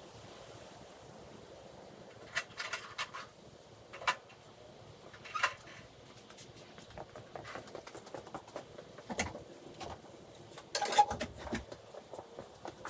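Scattered light knocks and clicks at irregular intervals, in small clusters, the loudest a bit before the end, over a faint steady background.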